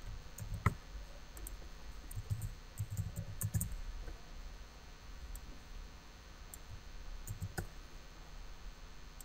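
Faint, irregular clicking of a computer keyboard and mouse while code is typed and edited. A cluster of keystrokes falls between about two and four seconds in.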